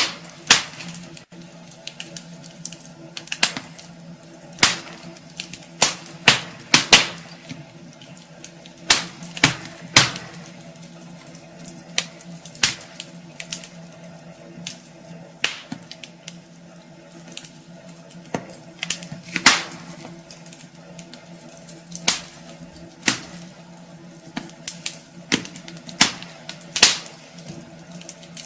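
Wood fire in a fireplace crackling: irregular sharp pops and snaps, some much louder than others, over a faint steady low hum.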